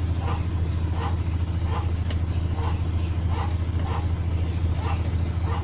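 A steady low engine-like hum, with a light chirp repeating about twice a second over it.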